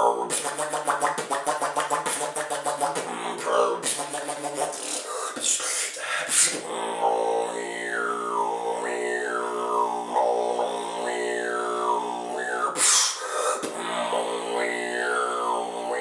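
Solo vocal beatboxing: a fast pulsing buzz over a held low hum for the first few seconds, a few sharp hits, then a steady hummed bass note with high falling sweeps repeated about once a second.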